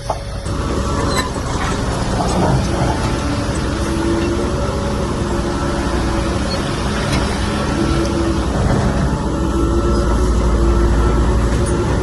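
Heavy diesel earthmoving machinery, bulldozer or dump truck, working under load: a steady, loud low engine drone with a few short metallic knocks.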